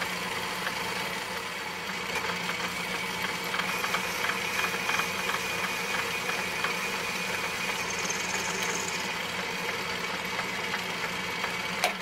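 Atlas metal lathe running steadily with its motor and gear train humming, with small irregular ticks as the power-fed carriage drives the cutting tool along the turning rod. A single sharp click comes near the end.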